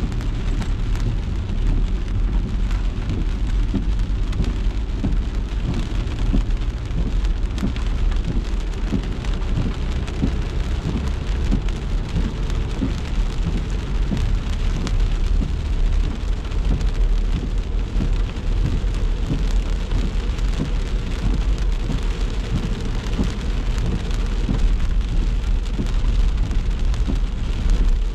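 Steady rain falling on a car as it drives, many small drop hits over a low, steady rumble from the car and road.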